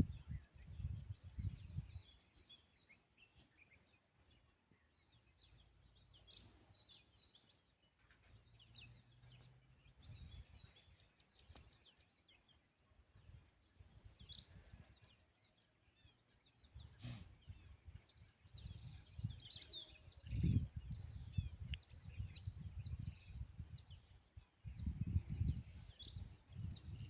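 Small birds chirping and calling repeatedly, a rapid run of short high notes. In the second half, low buffeting rumbles come in bursts, getting stronger near the end.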